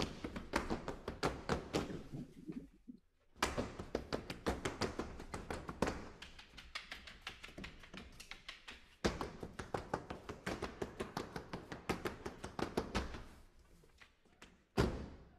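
Push brooms used as percussion: a troupe sweeping and knocking broom heads and handles on a wooden stage floor in a quick, tight rhythm. The rhythm drops out briefly about three seconds in and ends with one sharp hit near the end.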